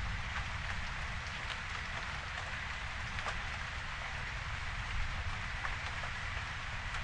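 Steady rain falling, with separate drops ticking close by every second or so. A low rumble sits underneath.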